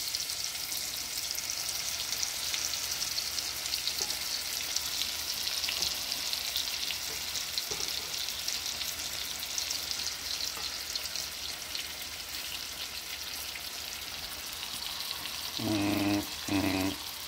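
Deer tenderloin searing in olive oil and butter in a cast iron skillet: a steady sizzle with fine crackling pops.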